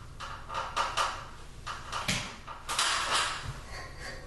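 Glass shade and bulb being handled at a vanity light bar's metal socket: a run of short scrapes and light knocks, loudest a little past halfway.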